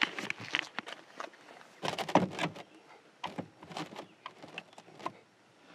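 Handling noise: irregular knocks, clicks and rustles as fishing rods are moved about in a jon boat.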